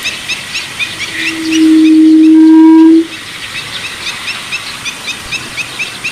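Yellow-legged buttonquail's breeding call: one long, low, steady hoot of about two seconds that swells in about a second in and ends suddenly about three seconds in. Rapid high chirping runs on in the background.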